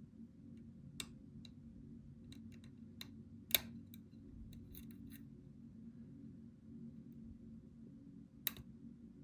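Small metallic clicks and ticks of a lock pick and tension wrench working the pins of a pin-tumbler challenge lock, irregular and scattered, with one louder click about a third of the way in and another near the end, over a low steady hum.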